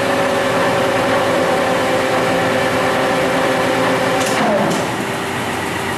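Nardini engine lathe headstock running with its spindle and chuck turning, a steady whine of several tones from the gearing. A little past four seconds there is a click and the pitch falls as the spindle slows down.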